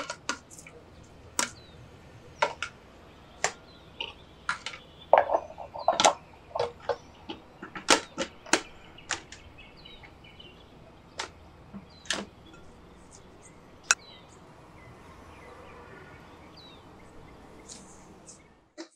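Riced cauliflower being scraped from a Cuisinart food processor's plastic bowl into a glass mixing bowl with a spatula: a run of sharp, irregular taps and clunks of plastic on plastic and glass, thinning out to a soft, quiet haze after about 14 seconds.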